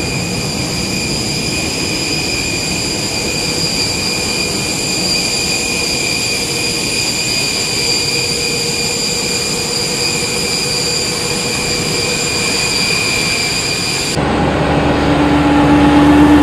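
Steady high-pitched jet turbine whine over a constant rushing noise, typical of a Boeing 747 on the ground with its turbines running. About 14 seconds in it cuts abruptly to a louder, lower vehicle engine hum.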